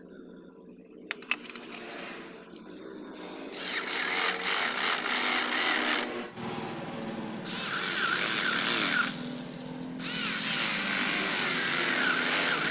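Corded electric drill with a homemade wood bit boring into a wooden block, cutting in three loud stretches with brief letups between. Before the drilling starts, two sharp clicks about a second in.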